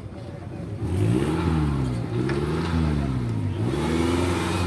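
Off-road vehicle engine revving up and down over and over, starting about a second in.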